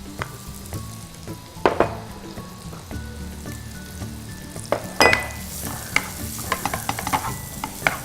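Bell peppers sizzling as they sauté in butter and garlic in a pan, stirred with a utensil that clicks and scrapes against the pan: a sharp knock about two seconds in, another about five seconds in, then a run of lighter taps.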